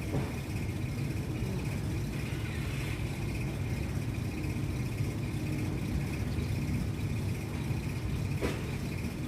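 A vehicle engine idling steadily, with a single short tick about eight and a half seconds in.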